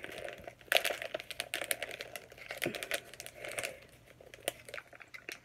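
Plastic snack bag crinkling and crackling as it is pulled and twisted to tear it open, a steady run of irregular small clicks and crackles.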